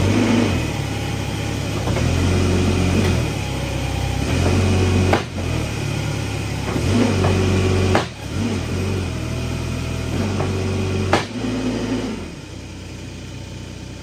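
Kubota SCL1000 track loader's diesel engine running while its hydraulics are worked, its note rising and falling in spells under load. There are three sharp clunks, about five, eight and eleven seconds in, and the engine drops back to a quieter note near the end.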